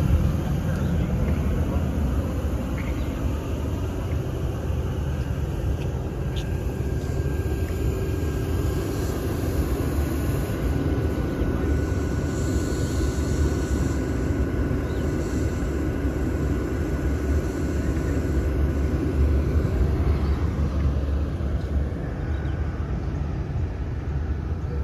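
Sydney Trains electric suburban train running, heard from inside the carriage: a steady rumble of wheels on track, with a faint steady whine from about seven seconds in.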